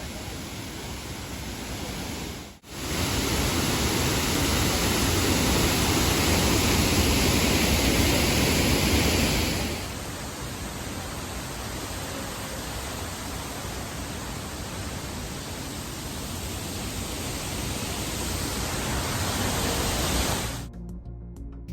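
Krangshuri Waterfall's falling water rushing in a steady roar, with a brief break about two and a half seconds in and a shift in its sound near the middle. Music starts just before the end.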